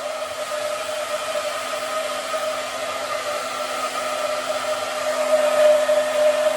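Hand-held hair dryer running steadily: a constant whine over a rush of blowing air, getting a little louder near the end.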